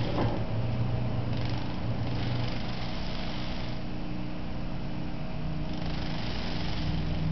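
Steady mechanical hum from a small motor: a low drone with a few steady tones and hiss above. A brief paper rustle near the start as a hand touches the sculpture.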